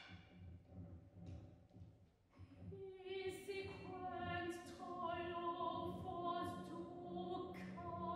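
A few sharp percussion strikes, then a soprano enters about three seconds in, singing long held notes in a contemporary concert piece over a low steady electronic rumble.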